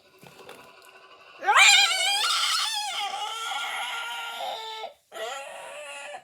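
A loud, wavering dinosaur-style roar that starts with a sharp rise in pitch about a second in and holds for a few seconds, followed by a second, shorter and quieter roar near the end.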